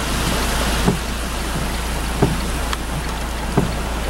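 Steady rain falling on a car, heard from inside it, with a short low thump repeating about every second and a half.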